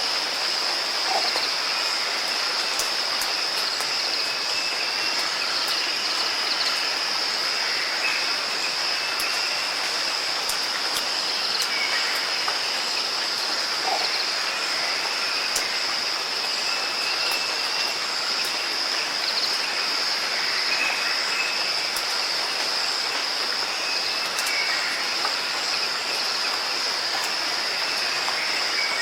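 Steady rain, an even hiss with scattered light drip ticks, under a constant high-pitched whine.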